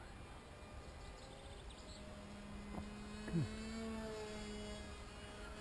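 Faint, steady drone of a small RC foam glider's electric motor and propeller running overhead, coming in about two seconds in with a few slightly wavering tones. A short falling chirp cuts across it a little past three seconds.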